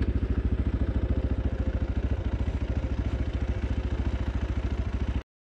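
Zongshen RX3's single-cylinder 250 cc engine running at low revs, an even chugging pulse of about ten beats a second. It cuts off abruptly near the end.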